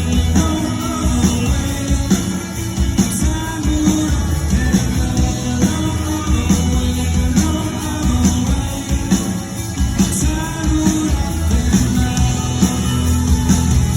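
Rock band playing live, a singer's voice over electric guitars, bass and a steady drum beat.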